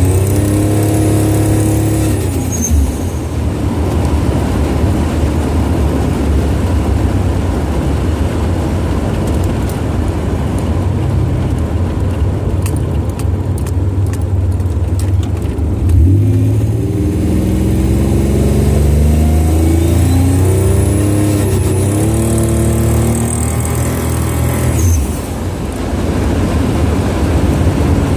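Buick Grand National's turbocharged V6 accelerating, its pitch rising in several sweeps through the gears with a faint high whistle rising alongside, then easing off near the end. The owner suspects an exhaust leak that shows only under boost.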